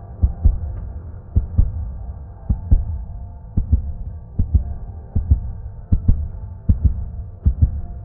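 Heartbeat sound effect: a low double thump, lub-dub, about once a second, over a steady low hum.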